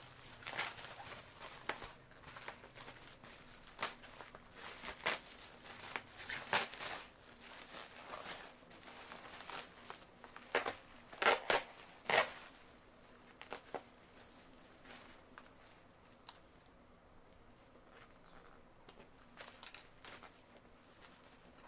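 Black plastic bubble-wrap packaging crinkling and rustling as it is handled and pulled open, in uneven crackles. The loudest crackles come a little past halfway, and it is quieter near the end.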